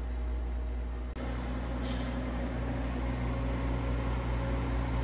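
Gas log fireplace running with its blower fan on: a steady low hum with a few steady tones above it, and a short faint hiss about two seconds in.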